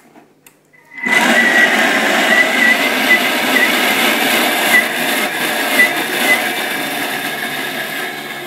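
Vorwerk Bimby (Thermomix) food processor starting up about a second in and blending at speed 7, its blades chopping basil, grated cheese and pine nuts in olive oil into pesto. It is a loud, steady motor whirr with a high whine, easing slightly toward the end.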